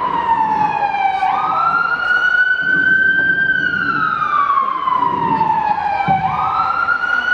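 Police siren wailing: the pitch climbs about a second in, holds, then slides slowly down, and climbs again near the end.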